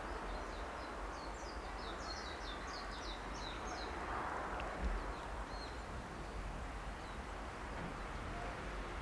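A small songbird singing a quick string of high chirps for the first four seconds or so, with a few scattered chirps after, over steady outdoor background hiss and a low rumble.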